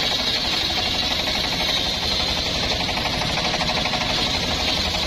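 A homemade circular sawmill's blade ripping lengthwise along an old mahogany log, to cut rafters: a steady, dense machine sound with a rapid even beat running under a high cutting whine.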